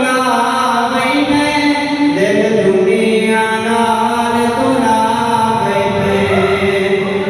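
A man's voice chanting in long held notes that bend and turn in pitch, carried over a mosque's sound system during a sound check.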